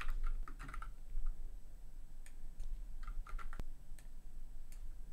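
Typing on a computer keyboard: short, irregular bursts of keystrokes with pauses between them.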